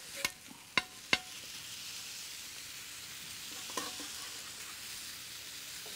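Thin-shaved beef sizzling on a flat-top griddle while two metal spatulas chop and turn it. Three sharp clanks of the spatulas against the griddle come in the first second or so, then a steady sizzle.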